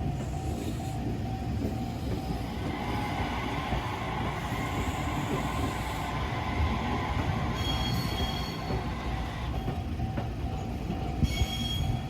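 Electric train running over a level crossing, with steady wheel and rail rumble. Brief high-pitched wheel squeals come about 8 and 11 seconds in, over the evenly pulsing tone of the crossing warning bell.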